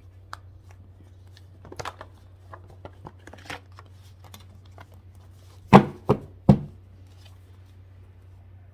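A deck of oracle cards being shuffled by hand, with light card clicks and rustles, then three sharp knocks about six seconds in. A low steady hum runs underneath.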